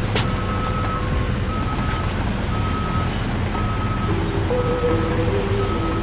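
A truck's reversing alarm beeps steadily, about one beep a second, over a steady engine noise. About four seconds in, a melody of music comes in underneath.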